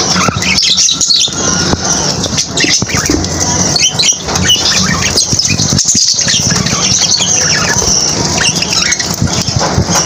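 A flock of budgerigars chattering with constant quick chirps and squawks. Wings flap as they jostle at a seed bowl.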